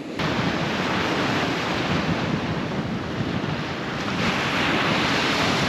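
Ocean surf breaking and washing up a sandy beach, mixed with wind buffeting the microphone. The wash grows louder about four seconds in.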